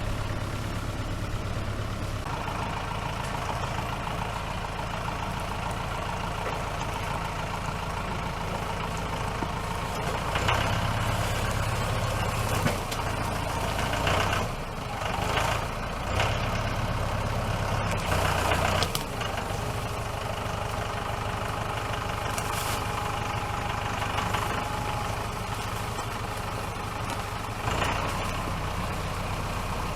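An engine running steadily at idle, with several brief louder surges about a third of the way in and one more near the end.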